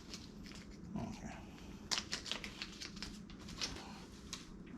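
A quick run of small clicks and taps as deadbolt lock parts and screws are handled, over about two seconds.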